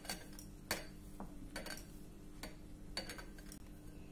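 A hand mixing dry gram flour, spices and oil in a glass bowl, with a handful of faint, irregular clicks against the glass over a low steady hum.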